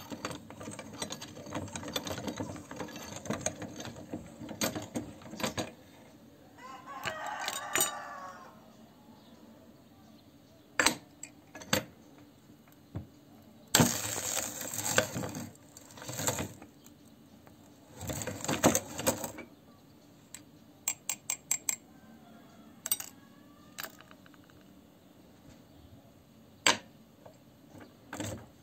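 Hand-cranked cast-metal meat grinder crushing hard lollipop candy: bursts of crunching and cracking as the auger breaks the candy, with separate sharp cracks and clicks between the bursts.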